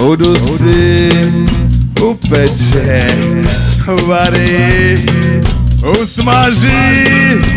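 A rock band playing live, with a drum kit keeping a steady beat under guitars and held, bending melody notes.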